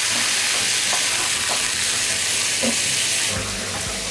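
Beef, onion and bell pepper sizzling in a hot frying pan with butter, stirred with a wooden spatula. The sizzle gets a little quieter about three and a half seconds in.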